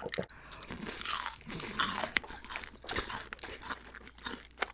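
Crispy fried chicken being bitten into and chewed: a run of crackly crunches, with a couple of sharper cracks, one about two seconds in and one near the end.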